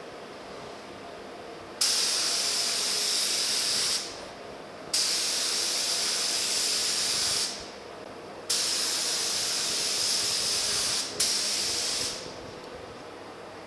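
A gravity-feed paint spray gun hisses in three bursts as its trigger is pulled and released. Each burst starts abruptly and lasts two to three and a half seconds, and the last is broken briefly near its end.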